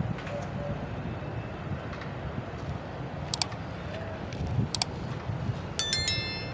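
A few sharp clinks of red clay paver bricks knocking against each other as they are handled and set, the loudest a ringing clink near the end, over a steady low rumble.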